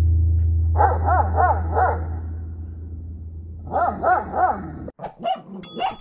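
Great Dane barking, two quick runs of about four barks each a few seconds apart, over a steady low hum that cuts off near the end.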